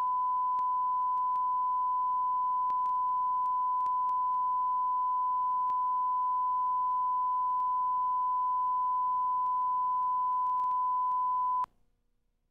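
Steady 1 kHz reference test tone of a bars-and-tone signal, one unbroken pure note that cuts off suddenly near the end.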